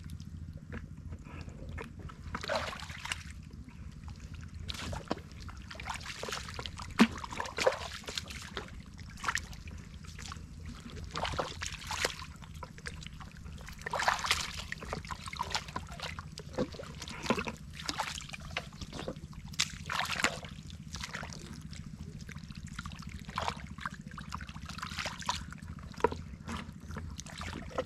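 Rubber boots squelching and sucking through soft, wet mud, with hands digging in the mud: irregular wet slaps and splashes.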